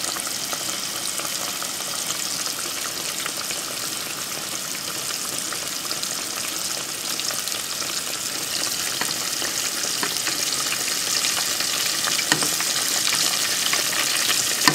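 Breaded fish patties deep-frying in hot oil at about 350°F: a steady crackling sizzle that grows a little louder toward the end. A couple of light knocks come near the end.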